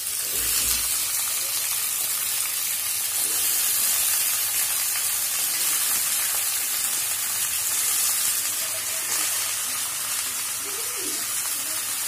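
Chopped vegetables sizzling in hot oil in a kadai, a steady hiss, with a brief low thump near the start.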